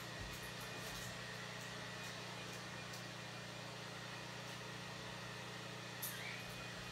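A faint, steady low hum under an even hiss, with a soft click about six seconds in.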